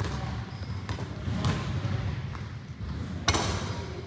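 Basketballs bouncing on a hard gym floor, a few scattered thuds in a large echoing hall, with a louder hit about three seconds in.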